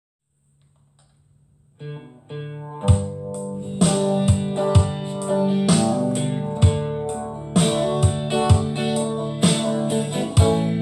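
Instrumental intro of a song: sustained chords come in about two seconds in, and a steady beat joins about a second later.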